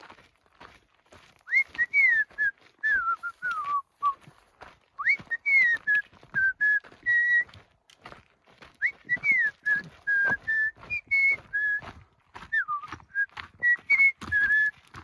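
A person whistling a tune in four short phrases of sliding notes, with footsteps crunching on the trail under it.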